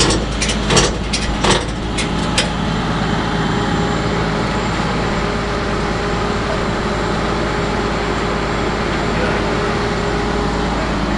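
A truck engine idling steadily, with a few sharp clicks in the first couple of seconds.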